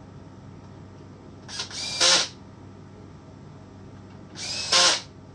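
Cordless drill/driver run in two short bursts, each spinning up in pitch and then holding, while driving screws into a Stihl MS261C chainsaw during reassembly.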